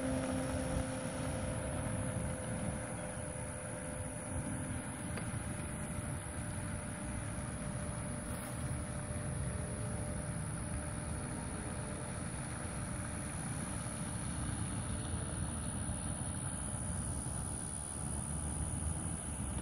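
Motor and propeller of a radio-controlled Sportsman floatplane, a steady whine that fades over the first several seconds as the plane climbs away. Wind rumble on the microphone continues throughout.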